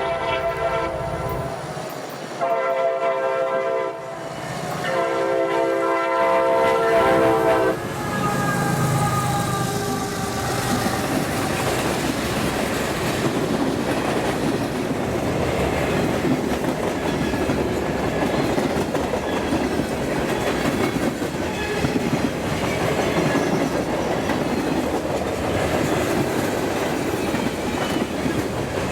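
Freight locomotive air horn sounding three blasts: the first blast is already running and ends about a second in, a shorter one follows, then a long one of about three seconds. After that the train rolls past, with a steady rumble and the clatter of wheels over the rail joints.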